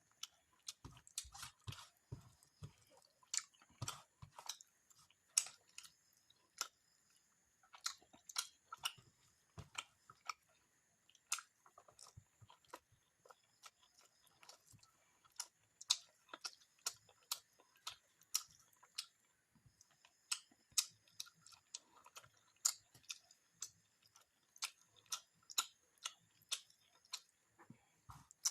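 A person chewing and eating fish curry with rice, close to the microphone: a run of short, irregular wet mouth clicks and smacks, a few to the second, with brief pauses.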